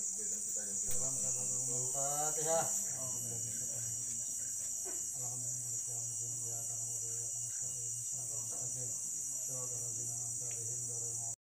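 Steady high-pitched chorus of insects, with quiet indistinct conversation underneath.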